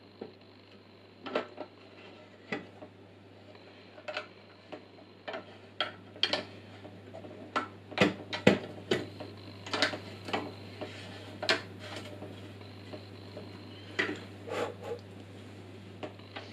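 Parkside PTBM 500 ES bench pillar drill running with a steady hum while its bit cuts into a 5 mm aluminium bar held in a vise, with irregular sharp clicks and ticks throughout, a cluster of the loudest about eight seconds in.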